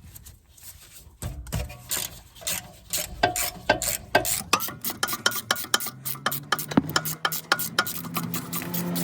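A ratchet clicking as the hex-socket guide bolts of a rear brake caliper are wound out. The clicks come sparsely at first, then fast and continuous from about halfway.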